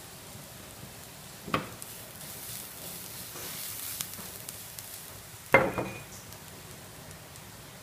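Chopped food sizzling in a frying pan on a gas burner, the hiss swelling mid-way as the pan is tossed over the flame. The pan clanks down onto the burner twice, about a second and a half in and louder near three-quarters through.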